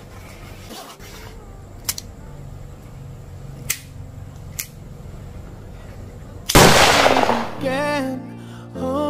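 A few sharp clicks, then a single loud gunshot bang about two-thirds of the way in that rings out and dies away over about a second. Soft melodic music starts right after.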